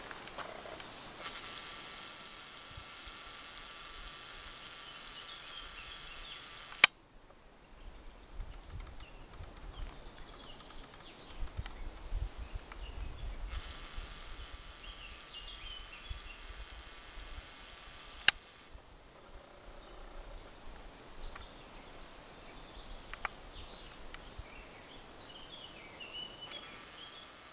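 Quiet woodland ambience with faint, scattered bird chirps and a low rumble of wind or handling on the microphone. Two sharp clicks, about seven and eighteen seconds in.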